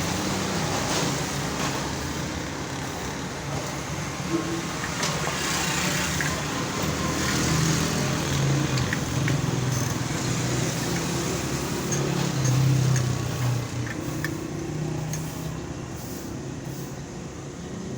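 Road traffic passing close by, a steady hum of vehicles swelling and fading, with a few short clicks over it.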